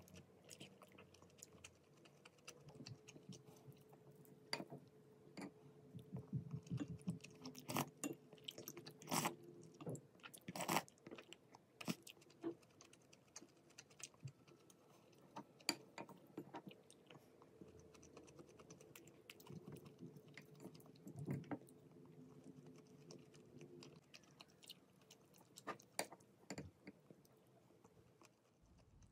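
Close, faint sounds of a person chewing a chewy mouthful of beef and rice, with scattered sharp clicks.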